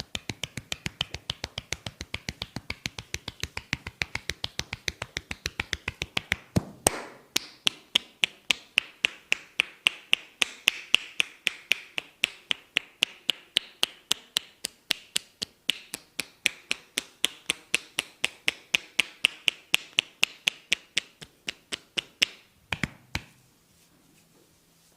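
Rapid rhythmic percussive massage strokes, about four to five sharp taps a second. About seven seconds in the taps turn sharper and brighter, and they stop near the end with two harder knocks.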